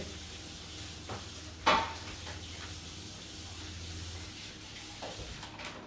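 Steady hiss and low hum of room noise, with a few light clicks of plastic LEGO Technic parts being handled. The loudest click comes about a second and a half in; the hum stops near the end.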